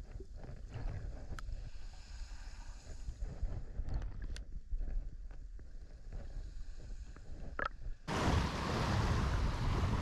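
Muffled underwater sound from a camera under the sea: a low rumble with a few sharp clicks. About eight seconds in it cuts abruptly to louder open-air wind buffeting the microphone, over small waves washing on the shore.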